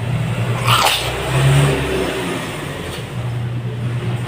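A person sneezes once, about a second in, over a steady low hum.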